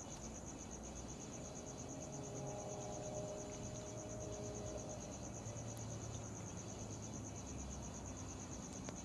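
Cricket chirping in a steady, rapid high-pitched trill, over a faint low background rumble.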